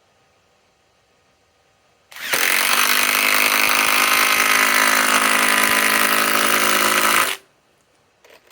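Flex compact cordless impact driver triggered once: it starts about two seconds in, runs loud and steady for about five seconds and stops suddenly.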